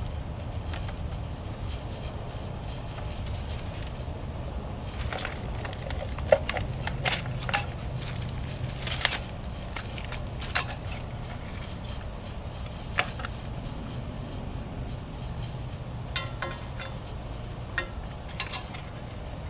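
Light metallic clinks and jingles of a small chain and steel hardware being handled on a post hole digger's driveshaft, in scattered clusters over a steady low hum.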